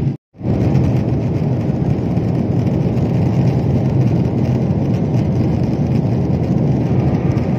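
Jet airliner cabin noise in flight: a steady, deep rush of engine and airflow noise heard at a window seat. It is broken by a brief silent gap right near the start.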